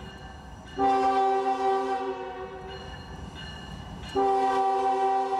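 CSX diesel locomotive's multi-chime air horn sounding for a grade crossing. One blast starts about a second in and fades over a couple of seconds, and another long blast starts about four seconds in. The low rumble of the locomotive runs underneath.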